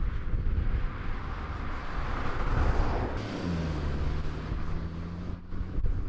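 Kia Picanto city car driving past: its tyre and engine noise swells to a peak about halfway through, then a steady low engine hum holds as it pulls away. Gusts of wind noise sit on the microphone.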